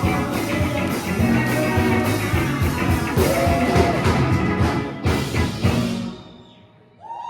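Rock-style music with guitar and a steady drum beat, played at a live show, ending about six seconds in and dying away quickly.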